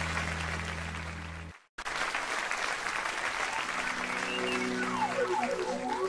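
Audience applause over a held low musical chord. The sound cuts out abruptly about a second and a half in, then the applause resumes. From about four seconds in, soft music with sweeping rising and falling glides and held notes starts under it.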